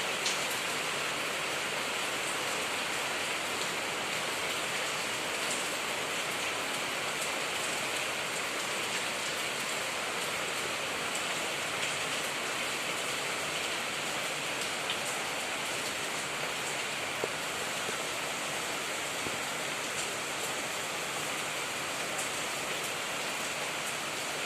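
Steady rainfall, an even hiss of rain with occasional single drops ticking out above it.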